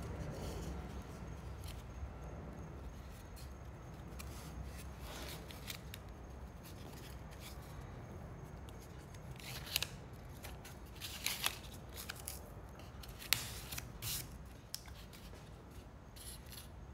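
Handling noise of blue painter's tape being pulled off the roll, torn and pressed across mitered MDF panels as they are folded up into a cube, with a few short sharp clicks and rips a little past halfway, over a low steady hum.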